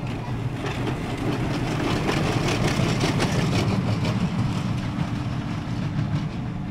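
Family roller coaster train rolling along its steel track: a rumble that swells as the train passes close, with rattling clicks from the wheels in the middle, then fades as it moves away.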